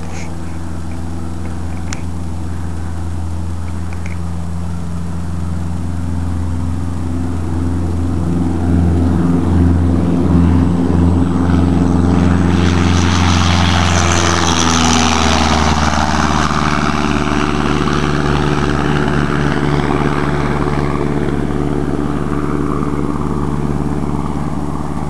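Airplane engine at takeoff power, a steady drone that grows louder, passes close about halfway through with a rush of noise and a drop in pitch, then slowly fades as it moves away.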